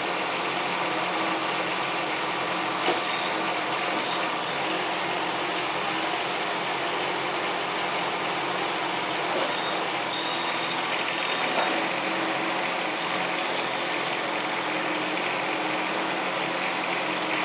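Bobcat E10z mini excavator running steadily while digging, its engine and hydraulics working the boom and bucket through sandy soil. Two brief knocks, about 3 seconds in and again past the 11-second mark.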